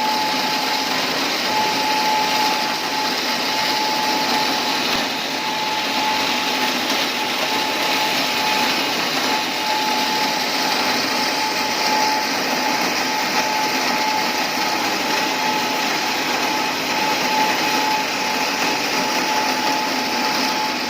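Paper roll cutting machine running steadily: an even machine whir with a constant thin whine through it.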